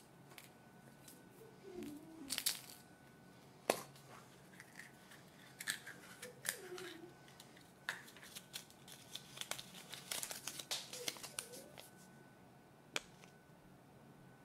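Foil wrapper of a Kinder Surprise chocolate egg crinkling and tearing as it is unwrapped by hand, in irregular bursts of crackle. Two sharp clicks stand out, one about four seconds in and one near the end.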